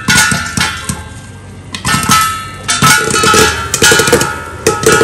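Metal utensil striking a metal cooking pan, ringing after each strike, then a fast rattling stir about halfway through.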